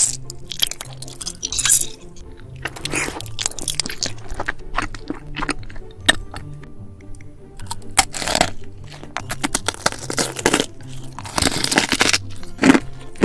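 Close-up mouth sounds of crunching and chewing food, bite after bite, over soft background music.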